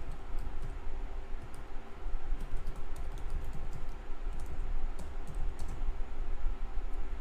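Typing on a computer keyboard: a run of quick, irregular key clicks that stops about six seconds in, over a steady low hum.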